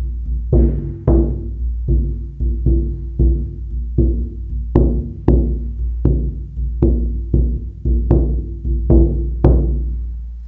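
Ovoid shaman drum beaten with a beater in a steady beat of about two strikes a second, each stroke a deep boom with a ringing tone that dies away. The last stroke comes near the end and is left to ring out and fade.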